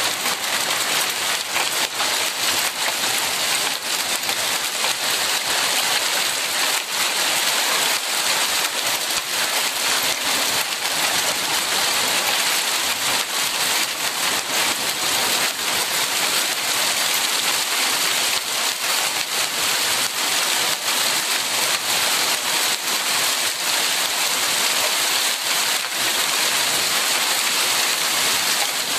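Small hail mixed with rain falling on a wooden deck and railing during a severe thunderstorm: a dense, steady patter of many small impacts that holds even throughout.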